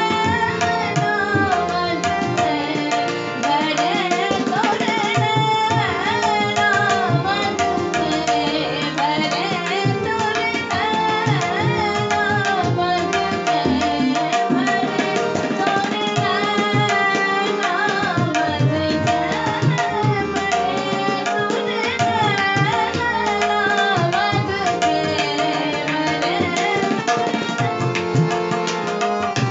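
A woman singing a Hindustani thumri in raag Khamaj, her voice gliding and ornamenting the melody, accompanied by tabla strokes over a steady held drone.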